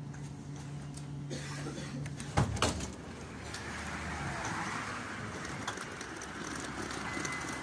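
Lyon T4 tram standing at a stop with a steady electric hum, then a sharp clunk about two and a half seconds in, followed by a rushing hiss as the doors open. Near the end a steady high tone starts.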